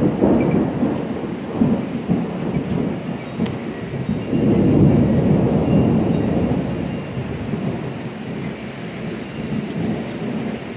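Thunder rumbling, swelling about four seconds in and slowly dying away toward the end. A high chirp repeats a few times a second throughout.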